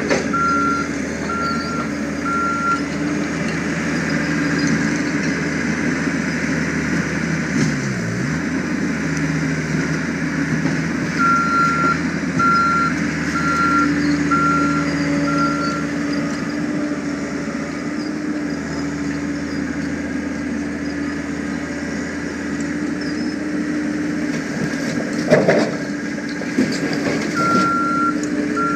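John Deere 325 skid steer's diesel engine running hard, with its backup alarm beeping in three spells as it reverses. The engine pitch sags and recovers once, about eight seconds in, and there is one loud clunk near the end.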